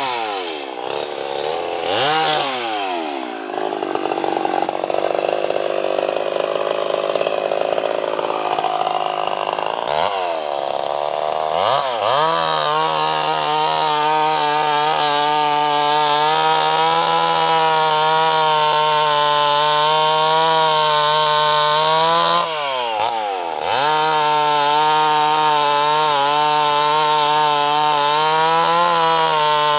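Two-stroke chainsaw running at high revs while cutting mahogany, the engine note dropping and climbing back up three times: at the start, about ten seconds in, and about twenty-two seconds in.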